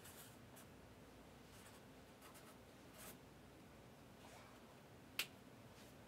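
Near silence: room tone with a few faint ticks and one sharp click about five seconds in.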